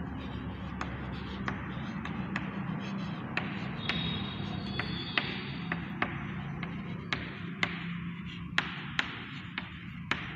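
Chalk tapping on a blackboard as words are written, a run of irregular sharp taps that get louder in the second half, over a steady low hum.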